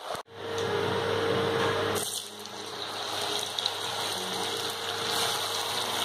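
Thin slices of raw cassava deep-frying in hot oil, a steady sizzling and bubbling with a few small crackles. A low hum runs under it for the first two seconds, and the sizzle shifts slightly about two seconds in.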